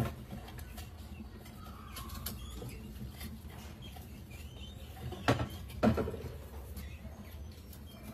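Rats scrabbling on the mesh and glass of a tipping-platform rat trap. There is a sharp knock at the start and two louder knocks about five and six seconds in, as the trap's wooden flap tips and swings back and rats drop inside.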